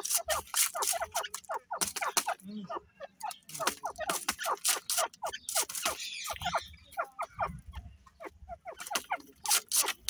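Grey francolins calling in quick runs of short, falling chattering notes, several times over.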